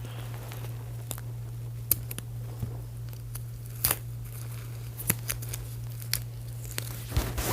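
Scattered sharp clicks and plastic crinkles of hands working a small plastic hair restraint off a doll's head, a handful of separate snaps a second or so apart, over a steady low hum.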